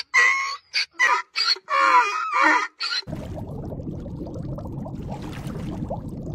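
Donkey braying: a quick series of short, loud, wavering calls. About three seconds in it gives way to a steady bubbling water sound.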